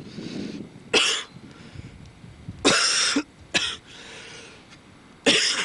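A man coughing from smoke: four separate coughs about a second or two apart, the longest near the middle.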